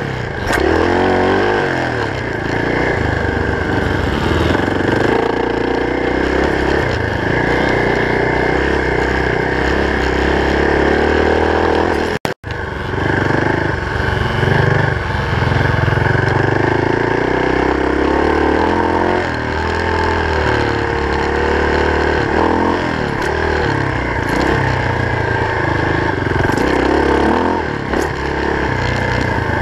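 Off-road vehicle engine running hard along a dirt trail, its revs rising and falling again and again through the turns. The sound cuts out completely for a moment about twelve seconds in.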